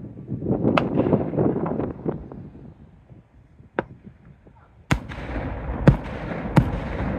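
Fireworks display: a dense spell of crackling, a single sharp bang about four seconds in, then from about five seconds a run of loud shell bursts over continuing crackle.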